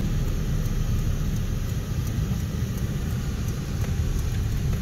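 Car driving: a steady low engine and road rumble.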